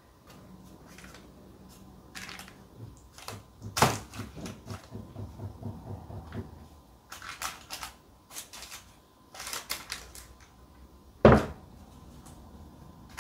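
Kitchen handling sounds as courgette slices are laid by hand into a baking-paper-lined dish: scattered clicks and soft rustles, with a sharp knock about four seconds in and a louder thud about eleven seconds in.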